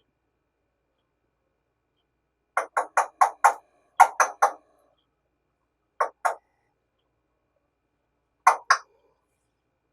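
A talking parrot making short, sharp calls in quick groups: five in a row, then four, then two pairs spaced a couple of seconds apart.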